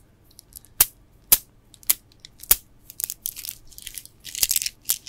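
Gemstone bead bracelets handled close to the microphone: sharp single clicks of beads knocking together about every half second, then quicker clusters of clicking and rattling from a little past halfway.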